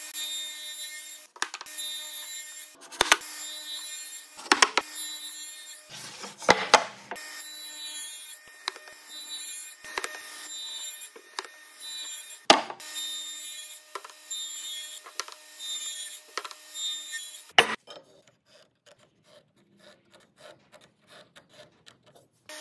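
Radial arm saw running with a steady hum, its blade pulled through a wooden block again and again to cut kerfs, with several loud sharp cuts. About 18 seconds in the saw stops and there are only light taps and scrapes of a square on the wood, before the saw starts again near the end.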